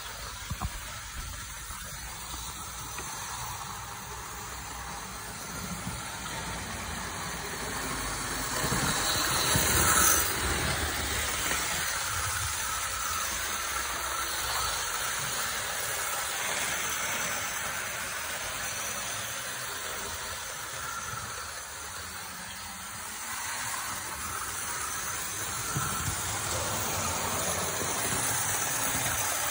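Hornby OO-gauge Flying Scotsman model locomotive and coaches running on the layout track: an even whirring hiss from the motor and the wheels on the rails. It swells louder for a moment about nine seconds in, then drops back.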